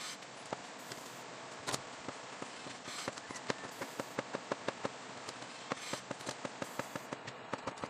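Kitchen knife chopping on a bamboo cutting board, slicing a hotdog into rounds: a quick run of sharp taps, about three a second, over a steady hiss.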